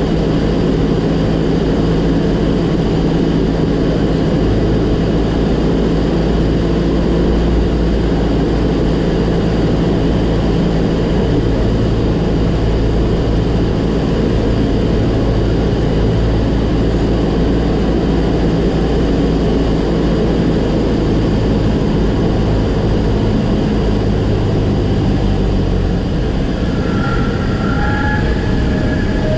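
Single-engine propeller airplane's engine running steadily under heavy wind rush during the landing approach. Near the end the engine note drops away.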